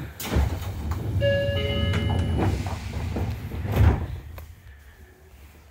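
Sliding passenger doors of a Seibu 20000 series electric train closing. A short electronic door chime of several tones sounds about a second in, then the doors run shut and meet with a loud thud near four seconds.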